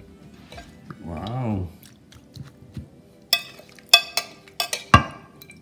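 Spoon and glass mixing bowl clinking against each other and the clay pot as raw anchovies are scooped and tipped in: five or six sharp, ringing clinks in the second half, with soft wet sounds of the fish. A short vocal hum about a second in.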